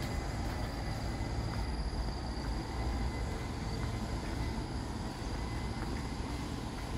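Outdoor walking ambience: a steady low rumble, with thin, steady high-pitched insect tones above it and a few faint ticks.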